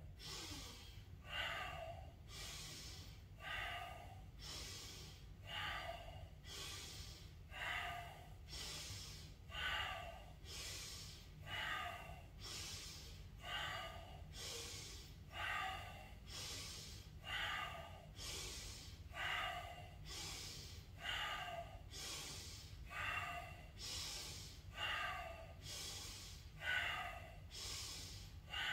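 A person doing a rhythmic qigong breathing exercise, audible deep breaths in and out in an even pattern, about one full breath every two seconds, with a steady low hum underneath.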